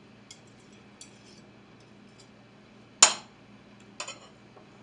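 Metal fork and knife clinking against a plate. A couple of light taps come first, then one sharp clink about three seconds in and a smaller one about a second later.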